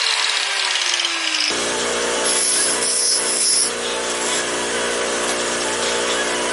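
A handheld grinder is at the rod bundle clamped in the vise, its whine falling steadily in pitch. About a second and a half in, a bench grinder takes over, its motor running steadily while the ends of cut copper-coated RG45 steel welding rods are deburred and chamfered against the wheel.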